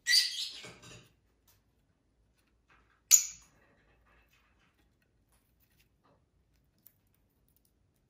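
Lovebird chirping: a shrill call lasting under a second at the start, then one short, sharp chirp about three seconds in.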